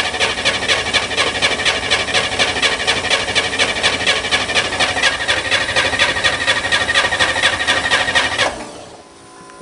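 Starter cranking the Corvair Spyder's engine cold in a fast, even rhythm without it firing: a no-start. The cranking cuts off suddenly about a second before the end, leaving the quiet steady hum of the electric fuel pump still running.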